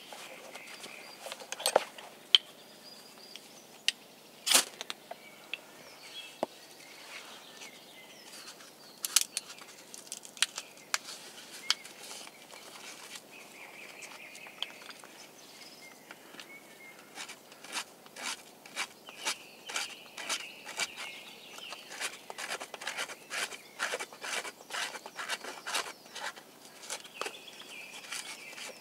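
Dry kindling sticks and wood shavings crackling and snapping as they are handled and packed into a campfire lay. There are a few sharp cracks early on, then a quick run of crackles, several a second, through the second half. Birds chirp faintly in the background.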